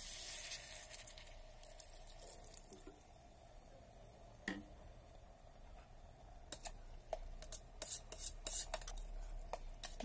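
Water poured into a hot electric kettle pot of frying green beans and potatoes, the sizzle hissing and dying away within the first second or so. From about six seconds in, a spatula clicks and scrapes against the stainless steel pot as the mix is stirred.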